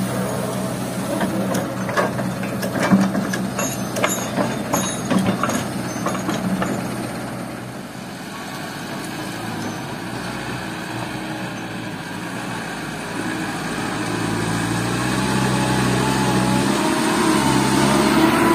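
A Kobelco hydraulic excavator's diesel engine running, with repeated clanks and knocks as its steel bucket works the sand load over the dump truck bed. It then gives way to a loaded light dump truck's diesel engine pulling away and drawing closer, growing louder and rising in pitch.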